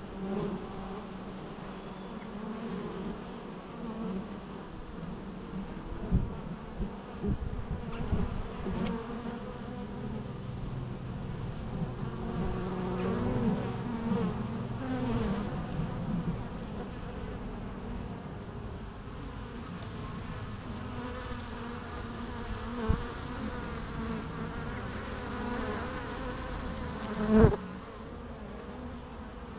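Bees buzzing continuously, several at once, their overlapping pitches wavering as they fly near the microphone. A few low thumps break in, the loudest near the end.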